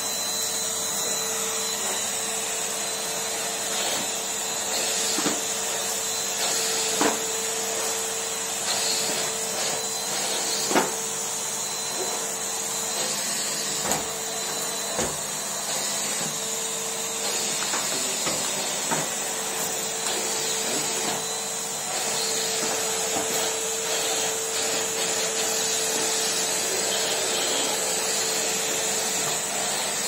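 Numatic Henry cylinder vacuum cleaner running steadily, a constant hum over the rush of suction as its wand is pushed over carpet, with a few short knocks scattered through.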